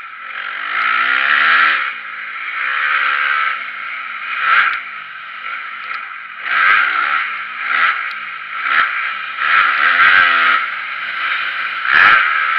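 Motocross dirt bike engine revving hard in repeated surges, pitch climbing with each burst of throttle and dropping as it backs off. Several sharp knocks and clatters as the bike lands and hits bumps, the loudest near the end.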